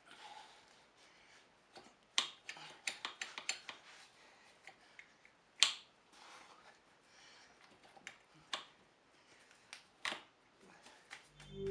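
Scattered sharp clicks and light metallic clinks at an uneven pace, the loudest about halfway through. Music comes in at the very end.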